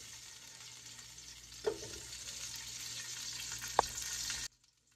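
Steady sizzling hiss as onion pieces go into an aluminium pressure cooker pot, with a knock about two seconds in and a sharper metallic clunk near the end as a piece lands. The sizzle cuts off suddenly just before the end.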